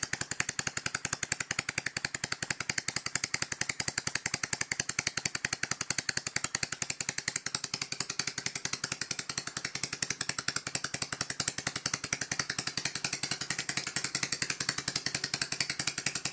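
Opened Copeland Compliant scroll compressor running with its shell removed, the scroll set and shaft giving a rapid, even mechanical clatter. The owner takes it to be running a bit dry.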